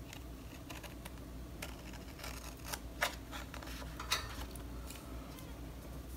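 Scissors snipping paper: a handful of short, irregular snips with light paper rustling between them.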